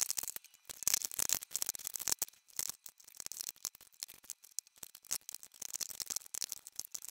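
Glass and plastic foundation bottles clicking and clinking against each other and the drawer as they are picked up and set down in rows: a quick, uneven run of small knocks.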